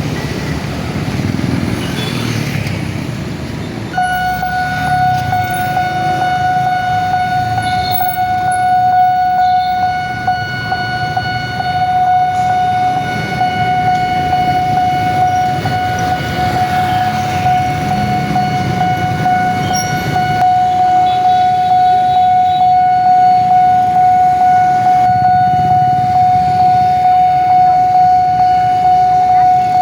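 Railway level crossing warning siren sounding, a steady high tone that comes on about four seconds in and is held without a break, over a low rumble.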